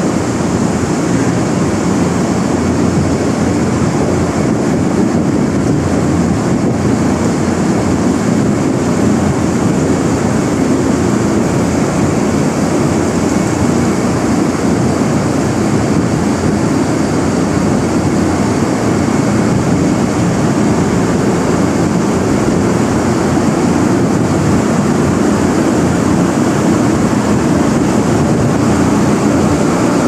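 Large overhead barn ventilation fans running: a loud, steady rushing noise.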